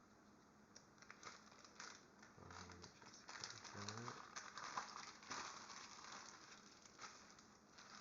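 Plastic Ziploc bag crinkling faintly as it is handled, a run of small crackles.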